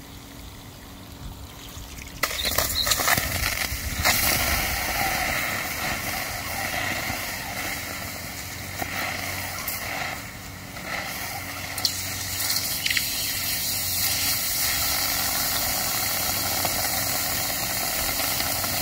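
Garden-hose water spraying onto a freshly cast aluminum ingot still hot in its mold, hissing and boiling off as steam while it is quenched. The spray starts suddenly about two seconds in and runs steadily, dipping briefly about ten seconds in.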